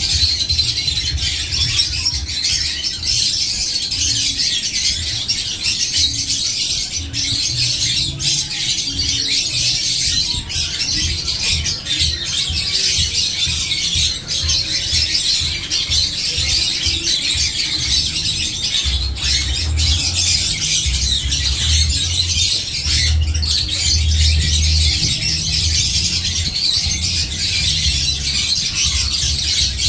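Many caged birds calling at once, a dense high-pitched chatter of chirps and squawks, with a low rumble underneath that grows stronger about two-thirds of the way through.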